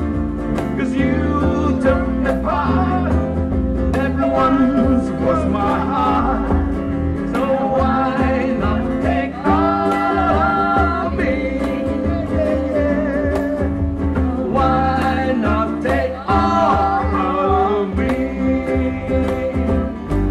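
Live band playing a song: a woman sings into a microphone over strummed ukuleles, electric guitar and a steady bass line.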